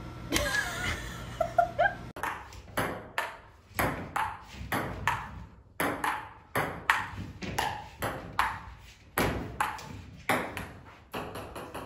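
Ping-pong ball clicking as it bounces on a table tennis table, knocked back and forth across the net in a quick rally of about three hits a second, starting about two seconds in.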